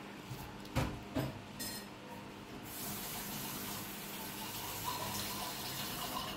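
Two short knocks about a second in, then water running steadily from a tap, starting a little under three seconds in and cutting off near the end.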